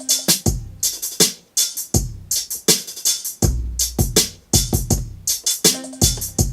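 Hip-hop drum beat played back from a Native Instruments Maschine MK3: booming kicks that fall in pitch, snappy hits and hi-hats in a steady groove, with a short held note at the start that comes back near the end as the loop repeats.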